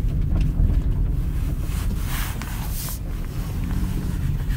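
Steady low rumble of a car driving on a back road, heard from inside the cabin, with a stretch of louder hiss about two seconds in.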